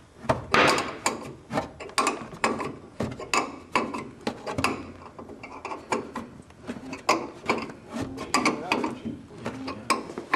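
Rapid, irregular metallic clicks and clinks, several a second.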